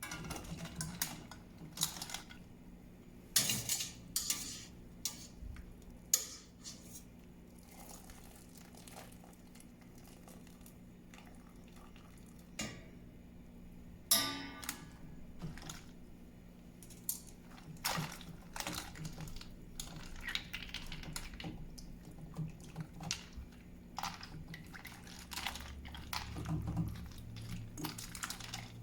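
Kitchen utensils and cookware clinking and knocking at irregular intervals over a steady low hum.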